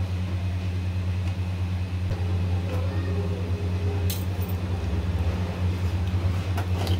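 Steady low mechanical hum, with a slotted spoon gently turning cooked rice in a metal pot and clicking lightly against it about four seconds in and again near the end.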